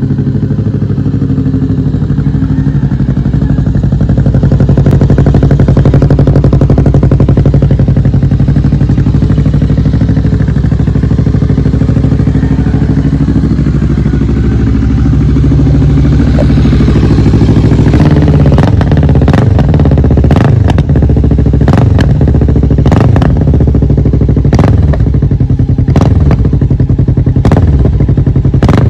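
Kawasaki Vulcan S 650 parallel-twin engine through an aftermarket Gem full-system exhaust, idling loud and steady. From a little past the middle it is blipped again and again, each quick rev coming with a sharp crack.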